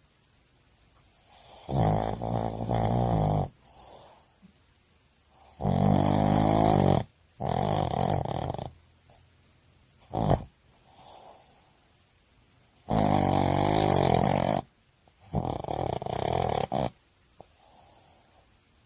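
Sleeping Boston terrier snoring loudly: six snores of one to two seconds each, some in close pairs, one very short, with softer breaths in the gaps between.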